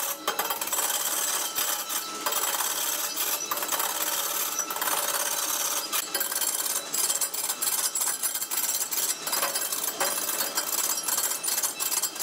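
Wood lathe turning a large wood blank while a hand-held turning tool cuts into the spinning wood: a continuous hissing scrape, broken by many irregular ticks and rattles.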